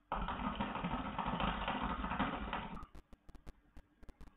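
Hookah bubbling during a long draw on the hose, a steady gurgle of smoke pulled through the water in the base that stops about three seconds in.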